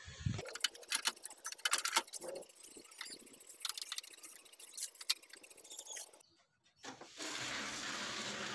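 Clicks, light knocks and clatter of a CRT TV's circuit board being handled and fitted back into the set. After a short break near the end, a steady hiss sets in.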